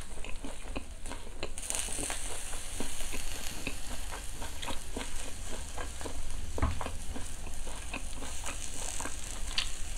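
Marinated pork neck sizzling on a tabletop charcoal grill: a steady hiss that grows stronger about a second and a half in, with many small crackling pops throughout.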